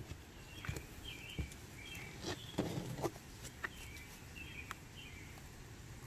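Miniature schnauzer puppies scuffling in dry grass and mouthing a rubber clog, making scattered soft clicks and rustles. Short, repeated bird chirps sound in the background.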